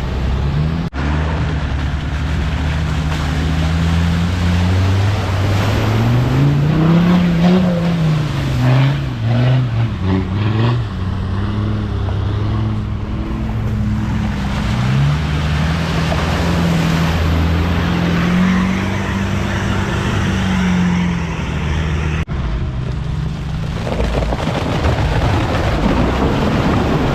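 Off-road 4x4's engine revving up and down repeatedly under load while driving through a crossing, over a steady rushing noise. The sound cuts abruptly twice.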